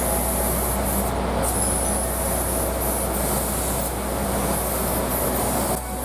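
A steady mechanical running noise with a strong low hum and a hiss, cutting off abruptly near the end.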